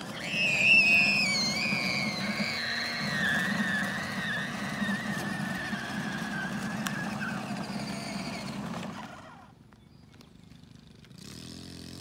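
A child's long high-pitched squeal, wavering and sliding slowly down in pitch, over the low whirr of a toy ride-on electric motorcycle running on asphalt. Both stop about nine seconds in, and the toy's motor hum starts again near the end.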